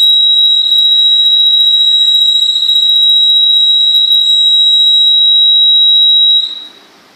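Electronic warning buzzer on the model swing bridge's control circuit sounding one steady high-pitched tone while the bridge rotates to its home position, cutting off near the end as the span comes to rest.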